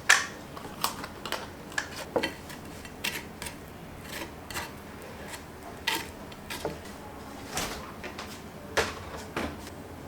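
Kitchenware handled: dishes and utensils clinking and knocking in irregular short taps, the sharpest just at the start and another near the end.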